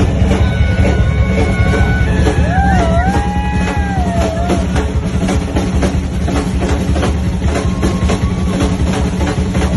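Loud live rock band playing, with the drum kit hitting steadily throughout and a bending, sliding lead line in the first few seconds.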